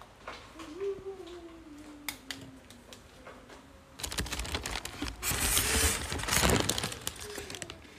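Thin clear plastic bag crinkling and rustling as hands unwrap it, starting suddenly about halfway through and loudest near the end. A few light taps and knocks come before it.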